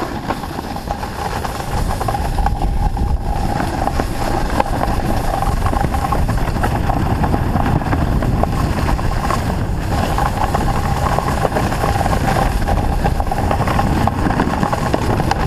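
Snowboard sliding fast over packed snow: a steady rushing scrape of the board's base and edges.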